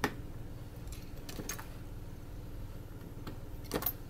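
Short sharp clicks and taps from handling a disassembled compact camera body and small repair tools: the loudest right at the start, a few more about a second and a half in, and a double click near the end, over a steady low hum.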